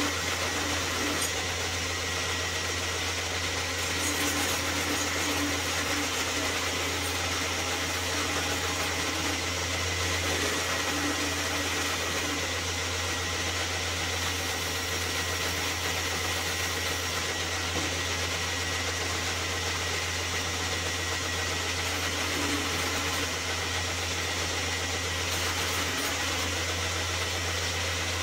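Belt grinder's electric motor running steadily with a low hum and a thin high whine, while a knife blade is cleaned up against its contact wheel at 120 grit.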